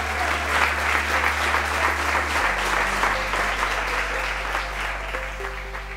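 Audience applauding with many hands, thinning out near the end, over background music with held low notes.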